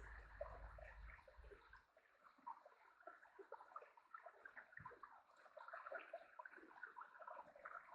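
Faint trickling and gurgling of water from a small waterfall, with a low rumble that stops about two seconds in.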